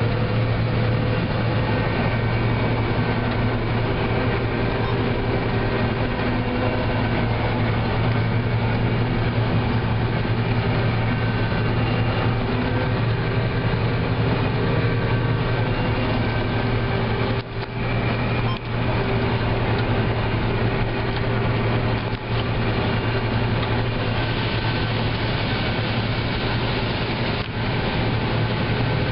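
John Deere combine running steadily while harvesting corn: a loud, even drone of the engine and threshing machinery with a deep hum, briefly dipping a few times in the second half.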